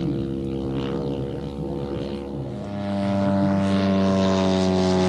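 Propeller-driven one-third scale RC model Corsair with a 340cc Westlake petrol engine running in flight. The engine note grows louder about three seconds in as the model comes closer, then its pitch sinks slightly.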